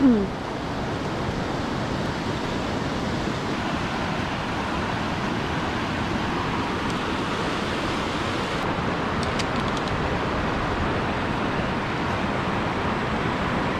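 Fast glacial river rushing over rapids, a steady even wash of white-water noise. A few faint clicks come about nine seconds in.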